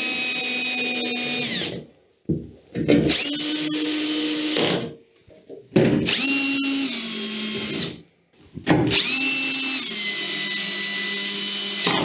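Cordless drill-driver driving in the four screws that hold a washing machine's front panel: four runs of motor whine with short pauses between, the pitch dropping in each as the screw draws tight.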